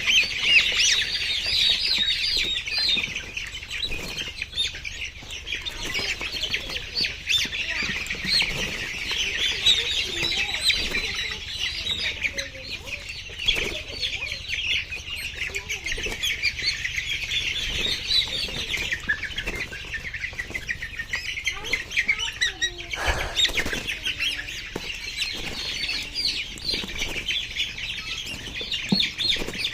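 A flock of laying hens calling and clucking continuously, many short high calls overlapping, with a single knock about two-thirds of the way through.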